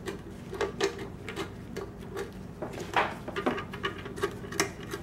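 Scattered clicks and knocks of a refrigerant gauge-set hose fitting being screwed onto a plastic venturi air vacuum pump, the loudest knock about three seconds in, over a faint steady hum.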